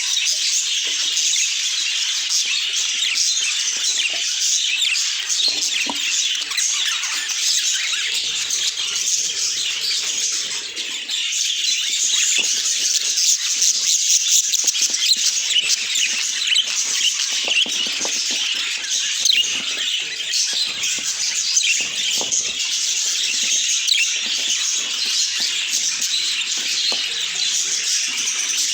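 Budgerigars chattering and warbling in a dense, unbroken stream of short high chirps.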